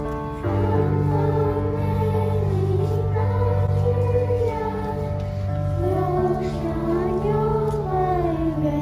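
A song: a single voice sings a slow melody with vibrato over sustained accompaniment notes, and a fuller chord comes in about half a second in.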